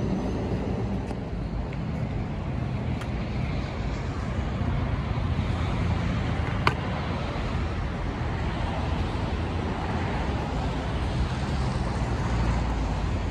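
Steady street traffic noise, with one sharp click about halfway through.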